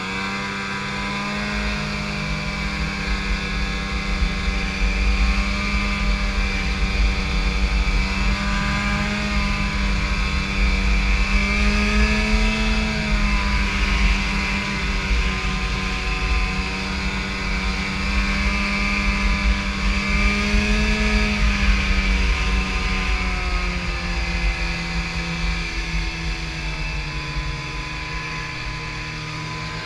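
Snowmobile engine running at cruising speed, heard from the rider's seat. Its pitch rises briefly about twelve and twenty-one seconds in, then eases lower over the last few seconds.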